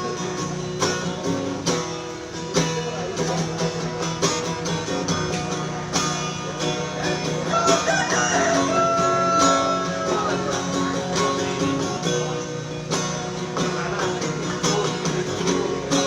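Instrumental music with plucked guitar over a steady beat, with no singing. A few long held melody notes sound around the middle.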